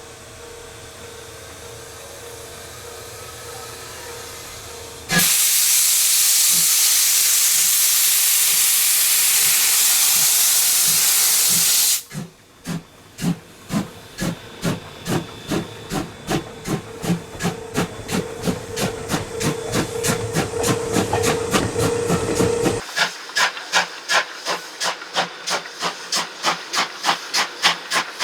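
Steam locomotive starting away: a loud, steady blast of steam hiss for about seven seconds stops abruptly. Then the exhaust chuffs begin, slow at first and quickening steadily as the engine gathers speed.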